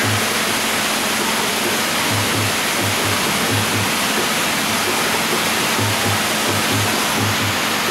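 Steady rush of water, with background music carrying a low drum beat that comes in quick pairs underneath.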